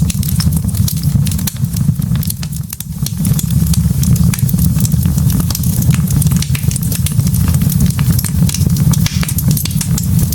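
Wood fire burning in a fireplace: logs crackling with many quick, irregular pops over a steady low rumble.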